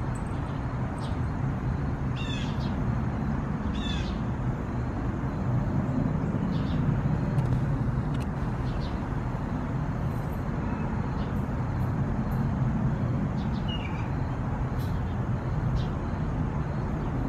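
Steady low rumble of distant road traffic, with a few short bird calls about two, four and fourteen seconds in.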